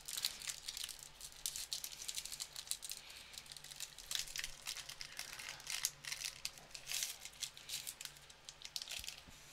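A Topps trading-card pack wrapper being peeled open and crinkled in the hands: a run of soft, irregular crackles and rustles.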